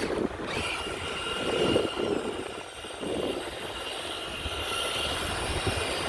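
Electric motor of a Monster Jam Megalodon RC truck running with a steady high whine, over a rough noise that swells and fades a couple of times.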